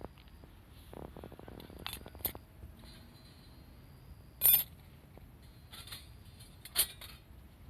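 A few separate light metallic clinks and knocks, the loudest about four and a half seconds in, another near the end.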